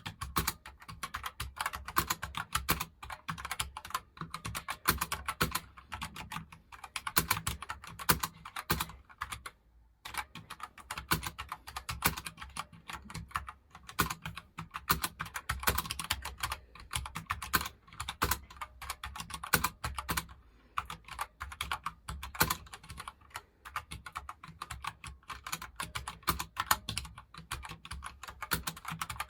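Continuous fast typing on a very light gaming keyboard: a dense run of quick key clicks, with a brief pause about ten seconds in.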